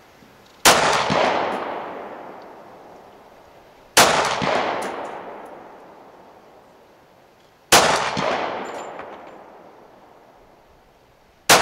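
Four slow, aimed pistol shots from a Glock 21SF in .45 ACP, about three and a half seconds apart, each sharp report followed by a long rolling echo that dies away over two to three seconds.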